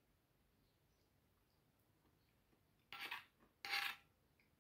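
Mostly near silence, then two short clinks of a fork on a plate about three seconds in, half a second apart, each with a brief ring.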